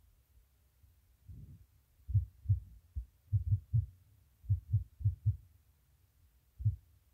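About a dozen low, dull thumps, irregularly spaced and some in quick runs of two or three, over a faint low rumble.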